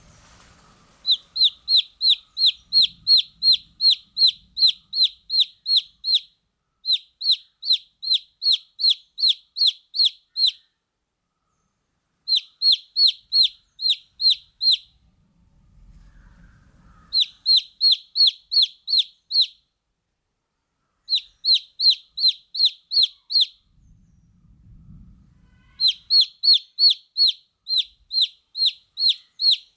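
Baby chick peeping: loud, high, downward-sliding peeps, about three a second, in bouts of a few seconds separated by short pauses.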